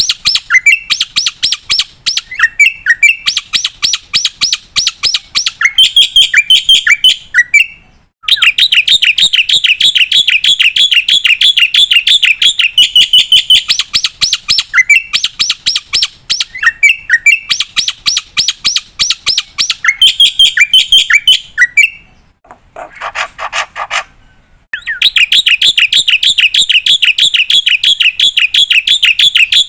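Black-winged starling (jalak putih) singing in long, fast chattering runs of rapidly repeated high notes. The runs are broken by short pauses, and there is a brief harsher, lower sound about three quarters of the way through.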